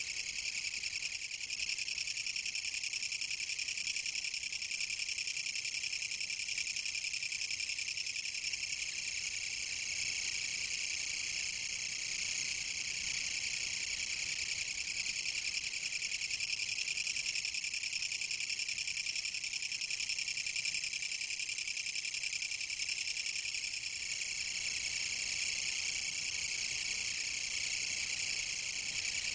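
Kutsuwamushi (Mecopoda niponensis, a Japanese katydid) stridulating: a continuous high-pitched rapid rattling buzz that goes on without a break.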